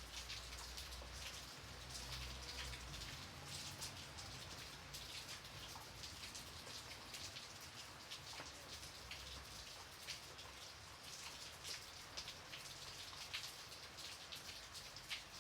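Steady light rain, with many separate raindrops pattering on a surface.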